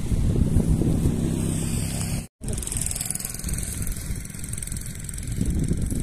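An engine running steadily with a low rumble; the sound drops out completely for an instant a little over two seconds in.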